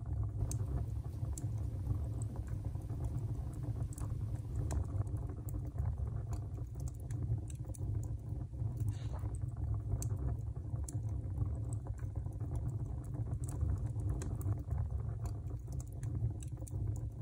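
Wood fire burning in a brick cook stove's firebox: scattered crackles and pops over a steady low rumble.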